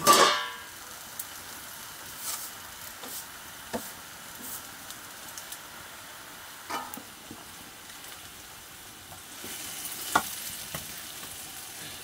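Chopped leafy greens sizzling in a black iron pan over a wood fire, a steady hiss with scattered light clicks and knocks. A sharp knock comes right at the start, and a louder metal clank about ten seconds in, as an upturned metal plate is set over the pan as a lid.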